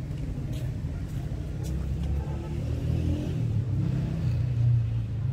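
Street traffic: a motor vehicle's engine rumbling close by, growing louder and peaking about four and a half seconds in.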